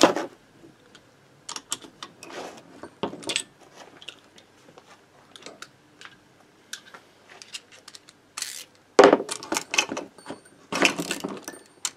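Scattered metal clinks and knocks from a Motobécane moped engine being handled and turned over on a wooden workbench, with a louder clatter about nine seconds in and again near the end.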